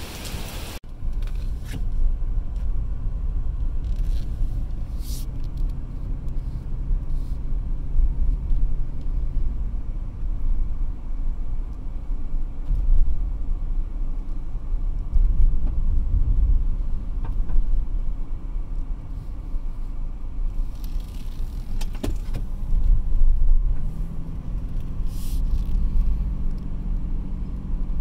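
Heavy rain hissing for about the first second, then a car's low, steady engine and road rumble heard from inside the cabin, with a few scattered clicks and knocks. An engine hum comes in about four seconds from the end.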